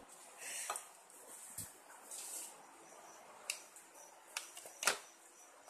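Light clicks and taps with brief soft rustling as kitchen containers and a bowl are handled on the table, with a sharper click near the end.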